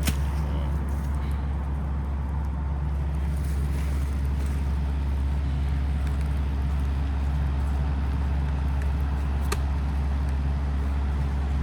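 Kubota KX030 mini excavator's diesel engine running at a steady speed with a constant low hum. There is a single sharp click about nine and a half seconds in.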